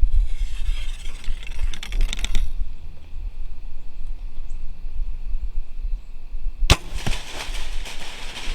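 A bow shot: one sharp crack of the string and arrow about two-thirds of the way in, followed by rustling, over a steady low rumble.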